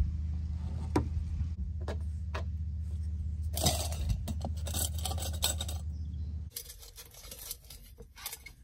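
A caulking gun clicking a few times as silicone sealant is laid around solar panel mounting brackets, then a couple of seconds of scraping on the fiberglass truck cap roof, over a low wind rumble on the microphone. About six and a half seconds in the wind rumble stops and only light clicks and knocks remain.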